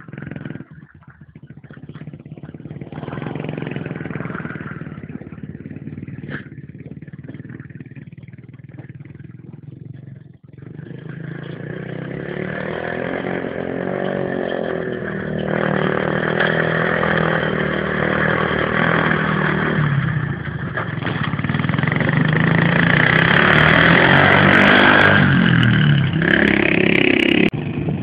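Engine of a Leshiy 2x2 all-terrain vehicle running as it drives. It is faint at first, then grows loud from about ten seconds in, with the pitch rising and falling under the throttle. It is loudest near the end, climbs once more, and drops off suddenly.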